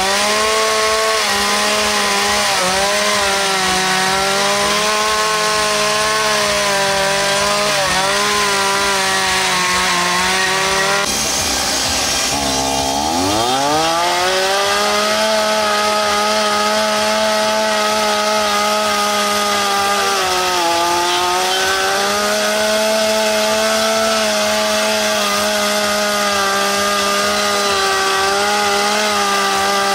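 Two-stroke chainsaw held at high revs while carving wood, its pitch sagging briefly now and then under load. About twelve seconds in it drops low and revs back up to full speed.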